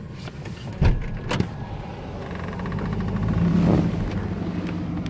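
A loud clunk about a second in and a sharper click just after, as the DeLorean DMC-12's gull-wing door is opened, then a steady low vehicle hum that swells slightly.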